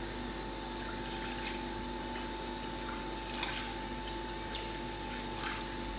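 Whisk stirring milk and sorghum flour in a cooking pot, a soft liquid swishing with a few light ticks of the whisk against the pot, over a steady faint hum. The constant stirring keeps the sorghum cream from forming lumps as it heats.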